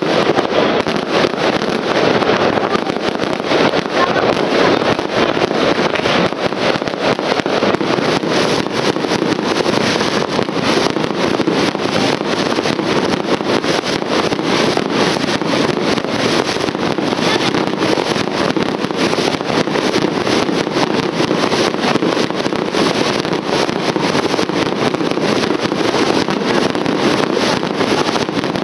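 Fireworks display: a continuous, dense barrage of bangs and crackling from aerial shells bursting overhead, with no let-up.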